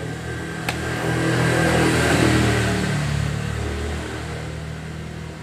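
A motor vehicle passing by, its engine and tyre noise swelling to a peak about two seconds in and then fading away.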